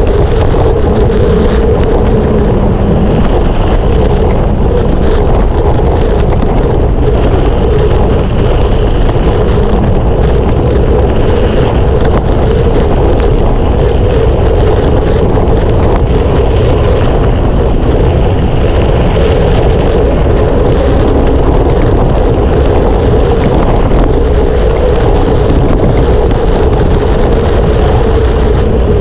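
Steady wind rush on the microphone mixed with the rolling rumble of a mountain bike's studded tyres on the trail, at an even level throughout.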